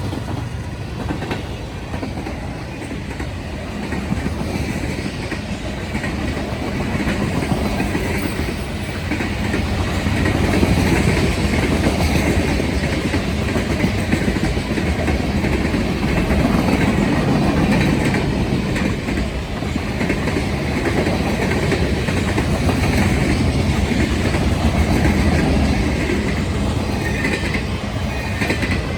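Train cars rolling past, a steady rumble of steel wheels on rail with clickety-clack over the joints.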